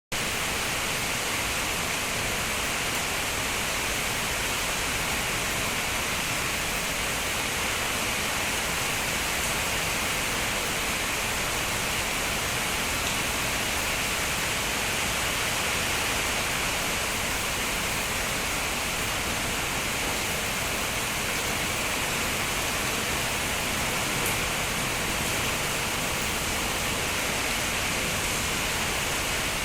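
Steady rain falling as an even hiss, with no single drops or changes standing out.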